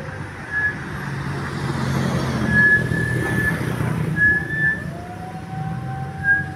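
A bus's diesel engine running as it moves off, swelling for a few seconds, with several short high toots and, near the end, a long tone that slides up and holds.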